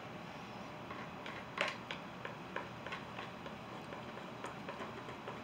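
A run of light clicks and taps from a palette knife working oil paint, starting about a second in and coming roughly three times a second, over faint room hiss.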